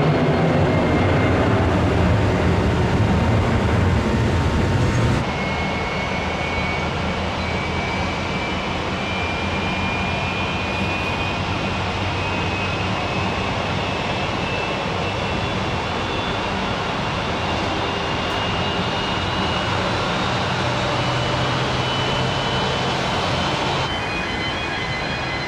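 Jet airliner engines running: a broad rumble with a thin turbine whine that slowly rises in pitch. The sound drops abruptly in level about five seconds in and changes again shortly before the end.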